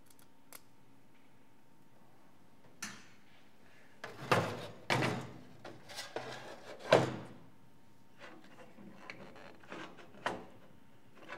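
A string of irregular knocks and clunks as a plastic radio case and its clear-plastic crank and spring mechanism are handled and set down on a steel workbench. The loudest knocks fall around the middle.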